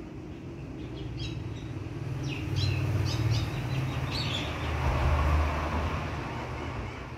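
Small birds chirping in a quick run of short high calls over a low rumble that swells twice and then fades.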